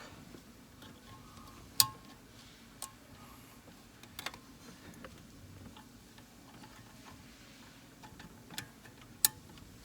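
Wiring connectors on a 2019 Hyundai Elantra's steering column being plugged back in: a few sharp, scattered plastic clicks, the loudest about two seconds in and another near the end.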